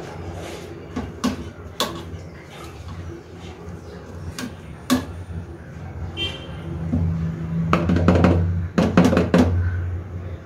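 Background music, with a hand-held potato masher knocking against the bowl now and then as boiled potatoes are mashed, including a quick run of knocks near the end.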